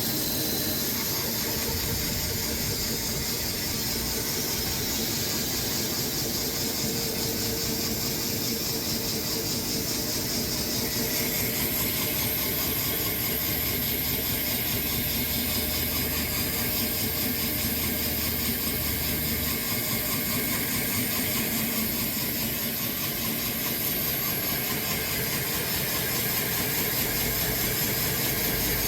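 Sawmill running steadily and cutting through a large Bastogne walnut log; about eleven seconds in the sound turns brighter and harsher.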